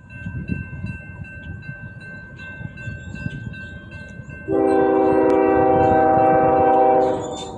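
Grade-crossing bell ringing steadily while the crossing gate lowers, with a low rumble under it. About four and a half seconds in, a CSX diesel locomotive's air horn sounds one long blast of several notes at once, lasting about two and a half seconds and by far the loudest thing.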